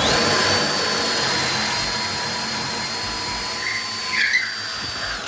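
DeWalt 20V Max cordless drill running at speed in its second (high-speed) gear: a steady motor whine that starts suddenly, swells briefly about four seconds in, and cuts off about five seconds later.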